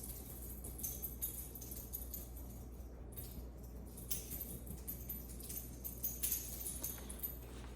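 Faint high metallic jingling that comes and goes in several patches, over a low steady hum.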